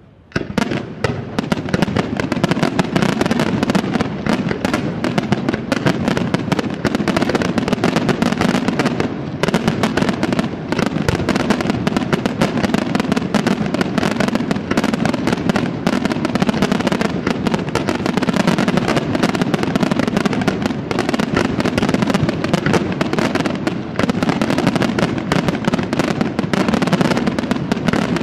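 Dense aerial fireworks barrage: rapid bangs and crackling that start suddenly just after the beginning and go on without a break.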